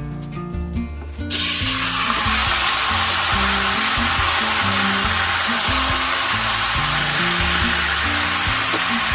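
Food going into hot cooking oil in a pan: a loud, steady sizzle starts suddenly about a second in and keeps going, over background music.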